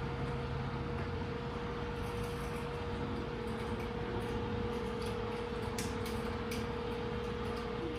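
Smartwings motorized woven wood window shades raising: their motors give a very quiet, steady hum with one steady tone, with a few faint light ticks near the middle.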